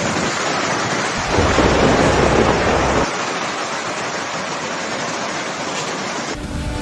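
Steady rain during a thunderstorm, with a deep rumble of thunder from about one to three seconds in.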